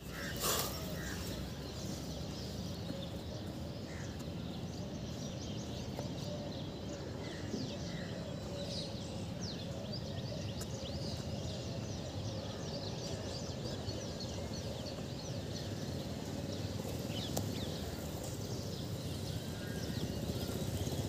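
Outdoor background noise with many short bird chirps scattered through it, and a single knock about half a second in as the phone is set down.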